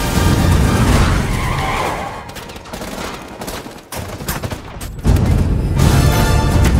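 Rapid gunfire over dramatic trailer music, with car sounds mixed in. The mix drops quieter in the middle, where sharp shots crack one after another, then the music swells back loud about five seconds in.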